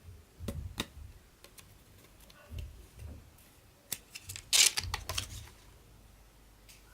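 Scattered clicks and taps of a hard plastic phone case being handled, with a louder burst of clicks about four and a half seconds in.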